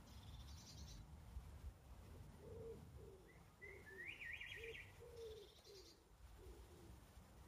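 Birds singing, faint: high rapid trills at the start and again about five seconds in, a short rising warbled phrase in the middle, and a run of low cooing notes beneath them, over a faint low rumble.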